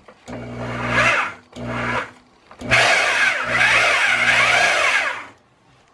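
Milwaukee 6230 portable bandsaw running in three trigger pulls: a short run, a brief blip, then a longer run of about two and a half seconds, motor hum with a wavering blade whine, spinning down each time. It is a test run on freshly replaced sleeve bushings.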